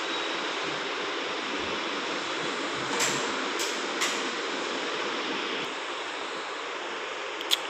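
Steady rushing hiss with no clear tone. There are three light clicks about three to four seconds in, and a sharper click near the end.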